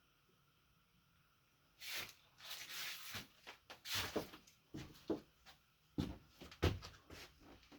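Drawers of a parts cabinet being handled, with loose parts inside. After about two seconds of quiet comes a string of knocks, scrapes and rattles that stops shortly before the end.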